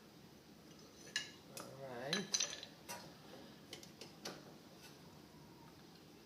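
Light metal clicks and clinks, five or six in the first four and a half seconds, from brake pads and caliper hardware being handled. There is a brief low murmur from the man about two seconds in.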